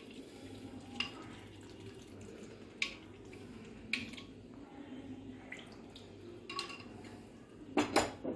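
Mutton curry bubbling in the pot as it comes to a boil, with a utensil knocking against the pot every second or so and a quick cluster of louder knocks near the end.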